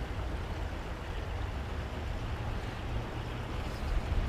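Steady outdoor background noise: a low rumble under an even hiss, with a brief louder low bump near the end.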